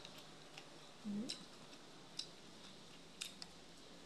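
Someone chewing with the mouth close to the microphone, making a few faint, sparse clicking mouth sounds, with a brief low hum of the voice about a second in.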